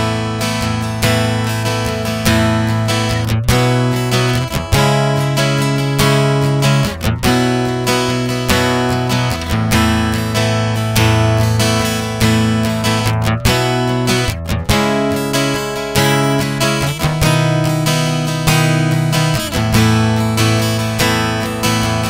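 Strinberg SD201HC TOS acoustic-electric guitar heard through its onboard SE-60 preamp pickup, playing a simple chord passage: chords struck and left to ring, changing every second or two.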